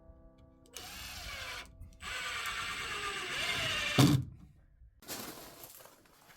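A handheld power tool's motor running in short bursts, its pitch shifting up and down, with a loud thump about four seconds in.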